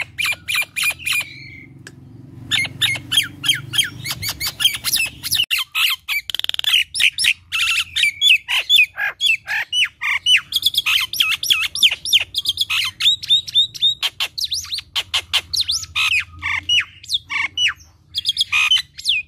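Common myna giving a fast, unbroken string of short, sharp, squawking and chattering notes, many a second, with a short pause near the end.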